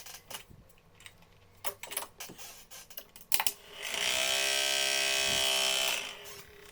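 A few clicks of handling, then the small electric motor of a homemade soda-can airplane fan spins up its propeller and runs with a steady high buzz for about two seconds before cutting off.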